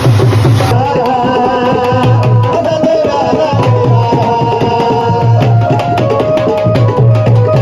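Background music with a steady, repeating drum beat under a wavering melody line.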